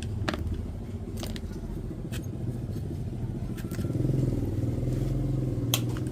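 Sharp clicks and taps of tools and ceiling-fan parts being handled while the fan's capacitor clamp is taken off, five or so spread across a few seconds. Underneath is a steady low engine-like hum, which gets somewhat louder about four seconds in.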